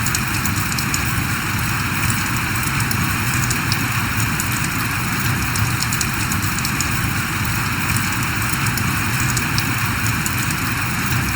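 Steady rain falling: an even hiss with many small, sharp ticks of drops striking close by.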